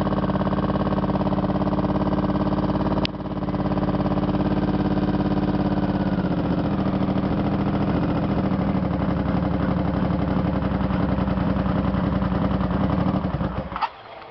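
Honda VFR750's freshly rebuilt V4 engine running at a fast idle, with a short click about three seconds in. Its speed settles a little lower about six seconds in, and the engine is switched off shortly before the end, cutting out abruptly.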